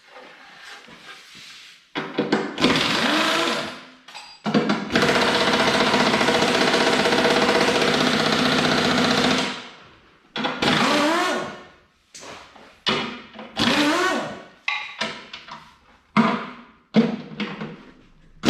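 A handheld power tool run in repeated short bursts, its motor pitch rising and falling with each squeeze of the trigger, with one long steady run of about four and a half seconds in the middle.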